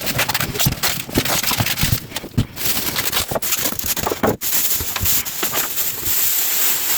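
A PC case being unpacked from its packaging: irregular knocks and clicks with rustling, turning into a steadier scraping rustle from about halfway through.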